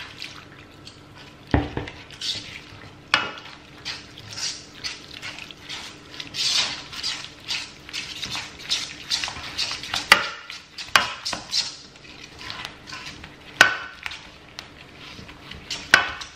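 Silicone-coated balloon whisk beating a thick roux-and-milk paste in a non-stick frying pan: a quick, rhythmic run of scraping swishes, with a few sharper knocks of the whisk against the pan. This is the stage of a white sauce where the milk is worked into the roux a little at a time.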